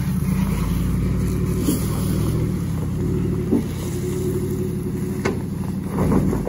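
Engine of a long-travel 2015 Ford F-150 pickup running steadily at low speed as the truck crawls over a rough dirt track, with a few sharp knocks along the way and a brief swell in loudness near the end.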